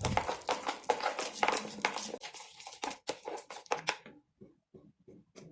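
A spoon stirring and mashing soft butter, cheese and chopped garlic in a mixing bowl: quick, closely spaced scraping and squishing strokes that thin out to a few scattered, fainter strokes about four seconds in.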